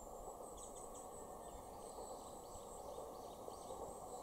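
Faint outdoor ambience: a steady high insect buzz with short, scattered bird chirps over a steady hiss.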